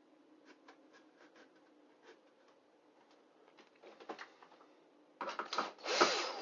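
Faint scratches and light clicks as a wood screw is handled and set into a glued joint in a thin wooden frame. About five seconds in, a cordless drill starts driving the screw into the wood, and its motor runs loudly with a wavering pitch.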